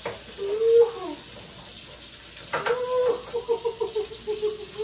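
Kitchen tap running into the sink, a steady hiss of water. Over it, a loud whine-like pitched tone: a short rising tone near the start, then from about halfway a held tone that pulses several times a second, and another brief tone at the very end.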